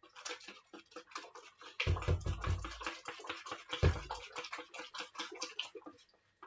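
Wire whisk beating pancake batter in a plastic bowl: a fast, dense clatter of clicks and taps as the wires strike the bowl, with heavier low knocks about two seconds in and again near four seconds. This is the batter being whisked smooth and free of lumps.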